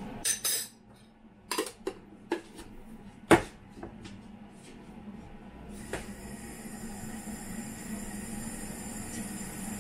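Kitchenware clinking and knocking: a spoon and metal canister and utensils set down on the counter, a handful of sharp clinks over the first few seconds, the loudest about three and a half seconds in. From about six seconds a steady rushing hiss starts and continues.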